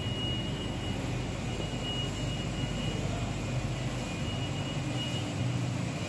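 Steady hum of a running rubber extrusion and microwave vulcanization line, with a thin high whine that drops out and returns several times.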